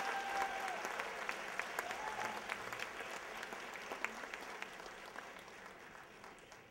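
Audience applauding, with a couple of long held whoops early on; the clapping thins and fades near the end.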